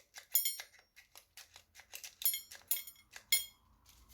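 Kitchenware being handled: a run of light knocks and clicks, with several bright ringing clinks like mugs, glass or spoons touching.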